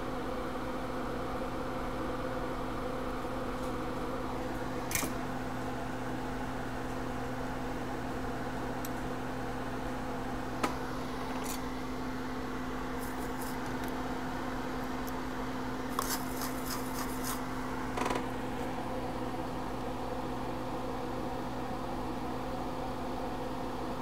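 Steady mechanical hum of running workbench equipment with a fan-like whir. A few faint light clicks come about five seconds in, about eleven seconds in, and again between sixteen and eighteen seconds in.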